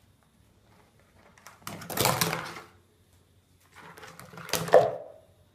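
Green slime being tipped out of a plastic tub into a toilet bowl: two noisy spells of a second or so, the second ending with a sharp knock.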